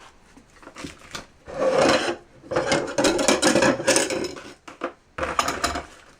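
Bursts of rustling and scraping with a few light clicks, from handling the kunai and their packaging: three spells, the longest about two seconds, in the middle.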